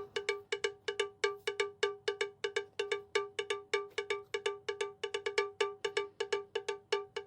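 Background music: one cowbell-like pitched percussion note struck over and over in a quick, steady rhythm, about six strikes a second.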